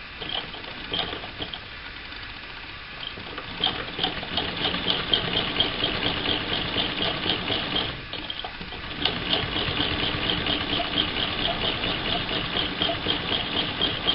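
1937 Frister and Rossmann transverse-shuttle sewing machine stitching, a rapid, even clatter of needle and shuttle. It starts slowly, runs steadily from a few seconds in, stops briefly about eight seconds in and picks up again a second later.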